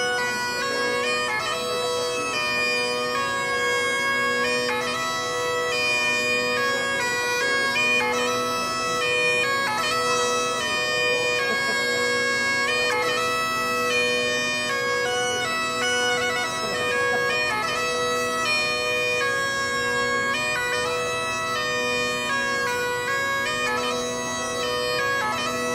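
Pipe band playing a tune: a group of Great Highland bagpipes sounding together over their steady drones, the chanter melody stepping quickly from note to note above.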